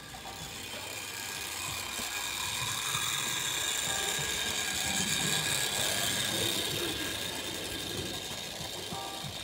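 Electric model railway tank locomotive hauling coaches along the track: a steady motor whine with the wheels rattling on the rails. It grows louder as the train comes close, about five seconds in, then fades a little.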